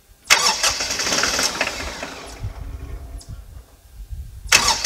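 Kioti CK2610 tractor's three-cylinder diesel is cranked and fires, runs for a few seconds and dies away, then is cranked again near the end. It fires right up but won't stay running just after a fuel filter change.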